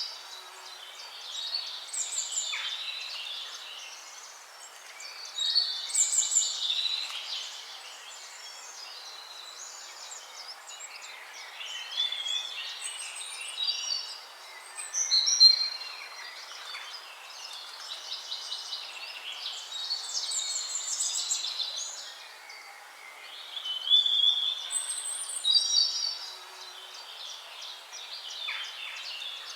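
Several songbirds singing in overlapping chirps and trills, in phrases every few seconds, over a faint steady background hiss.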